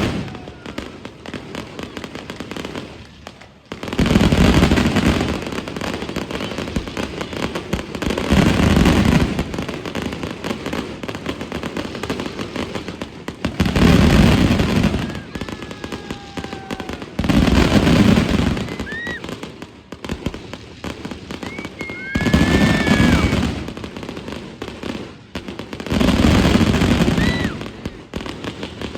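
Fireworks display: six big booms about four to five seconds apart, with crackling between them and a few short whistles.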